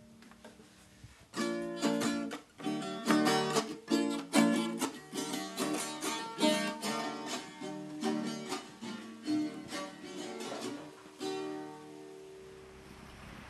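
Viola caiçara, the small ten-string guitar of fandango, strummed in chords with quick repeated strokes. The playing starts about a second in and stops a couple of seconds before the end, the last chord left ringing.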